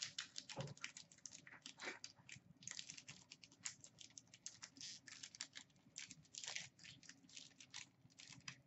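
Faint crinkling and crackling of a 15-16 Upper Deck Artifacts hockey card pack wrapper being picked at and torn open by hand. The small irregular crackles come in quick clusters, with a couple of fuller rips about half a second and two seconds in.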